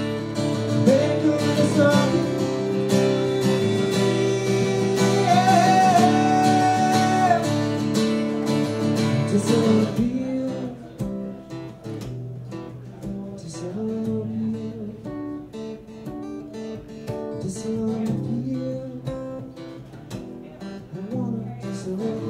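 Acoustic guitar strummed while a man's voice sings long wordless notes over it. About ten seconds in, the singing stops and the guitar carries on alone, quieter and more sparsely picked, as the song winds down.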